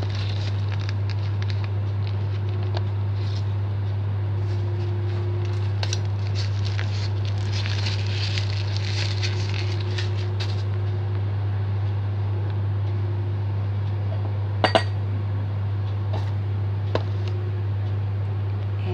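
Plastic bag crinkling and rustling as it is squeezed empty over a bread-machine pan, densest in the middle, then a sharp double click and a later single click as the pan is handled. A steady low hum runs underneath throughout.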